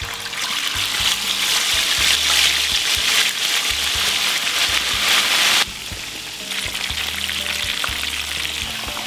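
Mujair (tilapia) going into hot oil in a frying pan and frying, a loud, dense sizzle that builds over the first few seconds. About six seconds in it drops suddenly to a steadier, quieter frying sizzle.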